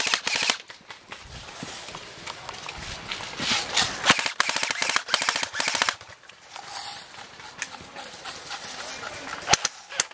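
Airsoft rifles firing in full-auto bursts: rapid, even strings of sharp clacking shots. There is a burst at the start, a longer run of bursts through the middle and a few short bursts near the end.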